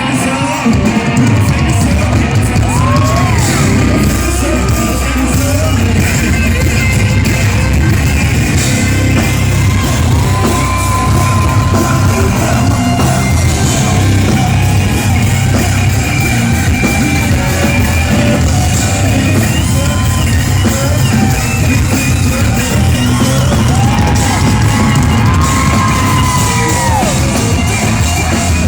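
Loud live rock music in a large hall, with singing and yelling over a heavy, steady bass.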